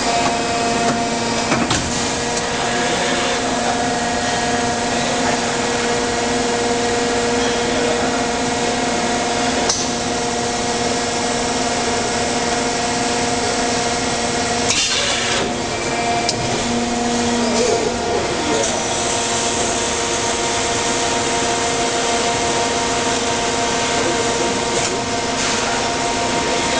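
Industrial plastics-processing machinery running steadily: a constant mechanical hum with several held tones over a noisy whirr, broken by a few sharp knocks and clanks.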